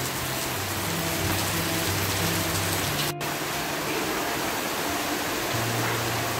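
Soft background music of low held notes over a steady hiss, with a split-second dropout about three seconds in.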